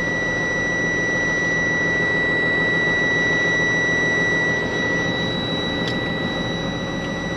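Diesel engine of a Freightliner vacuum street-sweeper truck idling steadily just after a cold start, heard from inside the cab, with a steady high-pitched tone running over it. A small click about six seconds in.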